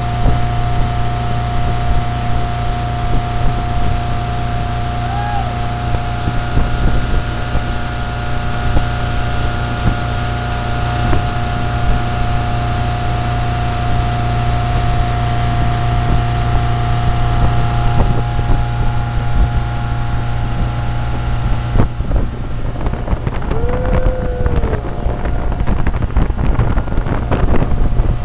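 Motorboat engine running steadily at towing speed, a constant drone, with water wash and wind buffeting the microphone, the buffeting heavier near the end.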